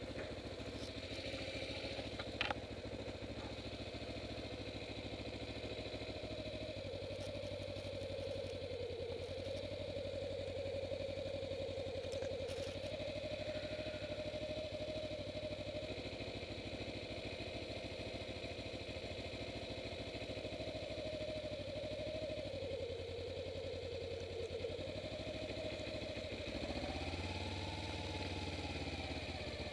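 Kawasaki Ninja 250R's parallel-twin engine running steadily, its pitch wavering gently, with a brief rise and fall of revs near the end. A sharp click about two seconds in.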